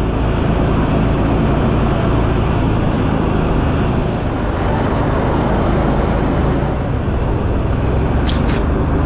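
A vehicle running steadily and loud, close up, with a heavy low rumble.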